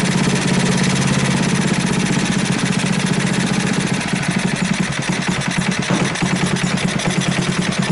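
Briggs & Stratton single-cylinder overhead-valve engine with a Keihin PZ27 clone carburettor running, settling about halfway through into a slow, low idle with distinct firing pulses. The idle is set too low and needs turning up.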